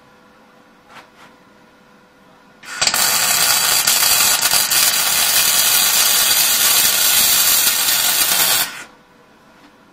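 Semi-automatic MIG welder arc burning on a steel angle-iron joint, fed with 1 mm copper-coated SV08G2S wire: a loud, continuous arc noise that starts about three seconds in and cuts off sharply after about six seconds. A couple of faint clicks come before it.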